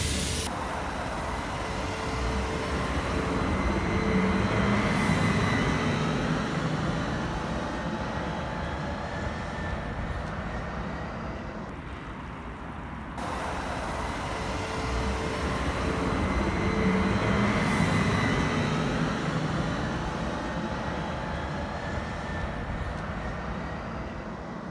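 VMZ-5298.01 trolleybus running: the steady hum of its electric drive over road noise, swelling and fading slowly. About halfway through there is an abrupt cut, after which the same stretch of sound plays again.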